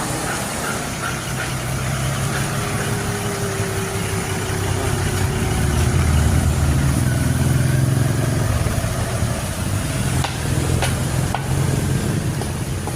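Heavy vehicle's diesel engine running steadily, growing louder for a few seconds in the middle before settling back, with a few sharp clicks near the end.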